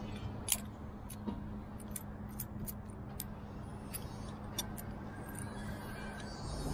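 Metal carabiner and rope-rigging hardware clicking and clinking about ten times, the loudest clink about half a second in, over a steady low hum.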